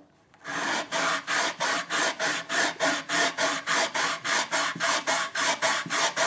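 80-grit sandpaper on a long flat sanding block rubbed quickly back and forth along a ukulele fretboard, about four strokes a second, starting about half a second in: the fretboard being sanded level until the pencil marks on it are gone.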